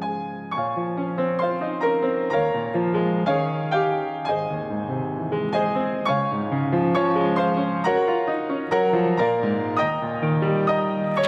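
Piano music: chords and melody notes struck one after another, each ringing and fading.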